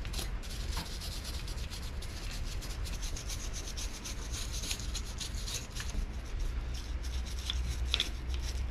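Fast, scratchy strokes of a hand tool scrubbing and scraping grime and rust off the cast-iron block of a Pontiac 350 engine, over a steady low hum.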